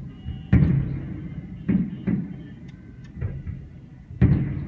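Aerial firework shells bursting in a series of booms, each followed by a rumbling echo. The loudest booms come about half a second in and near the end.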